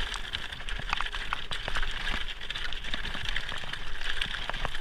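Mountain bike tyres rolling over loose gravel and dirt, a continuous irregular crackle and crunch of small stones.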